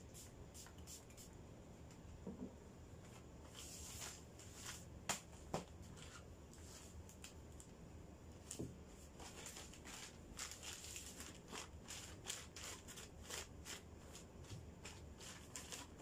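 Faint rustling and crinkling of a plastic mailer bag and its wrapping being handled and opened, a scatter of short crackles with a couple of sharper snaps about five seconds in, growing busier in the second half.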